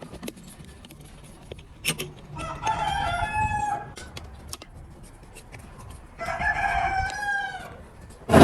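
A rooster crowing twice, each crow a long call of about a second and a half that drops in pitch at the end. A single sharp knock comes just before the first crow.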